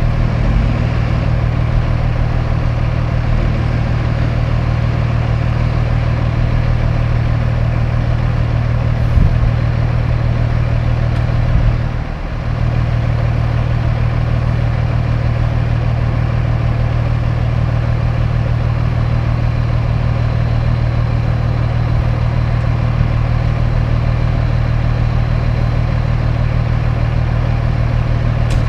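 Heavy diesel engines idling steadily with a low drone: the CAT-powered Kenworth T800H dump truck, with the CAT wheel loader working beside it. A single thump about nine seconds in.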